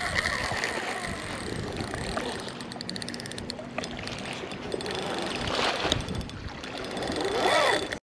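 Spinning reel clicking in a fast run for a couple of seconds while a hooked ray pulls on the line, over a steady rushing noise.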